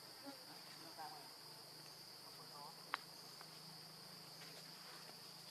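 Steady, high-pitched insect drone from the surrounding forest, with a few faint chirps and one sharp click about three seconds in.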